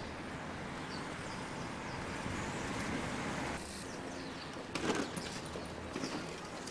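Street ambience: a steady hum of traffic with birds chirping, and a brief knock about five seconds in.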